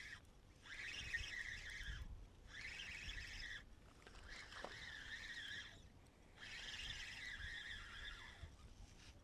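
Faint, repeated calls from a wild animal, in phrases of about one to one and a half seconds with short gaps between them, and a brief falling tone about halfway through.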